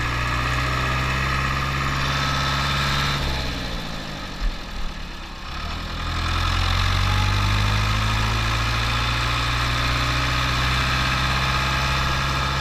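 Tractor diesel engine running steadily, slowing down about three seconds in and picking back up to a steady speed around six seconds.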